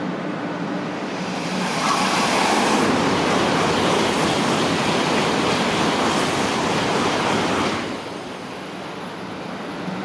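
N700S Shinkansen bullet train passing through a station at high speed without stopping. A rushing noise swells over about two seconds, holds loud for about six seconds as the train goes by, then drops off abruptly near the end.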